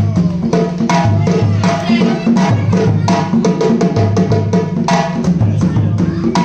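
Music with a steady beat: a repeating bass line under percussion strokes and a wavering melody.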